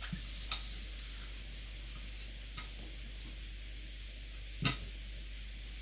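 A few isolated light clicks and clinks of small metal screws and chair fittings being handled during flat-pack assembly, with one louder knock about three-quarters of the way through, over a steady low hum.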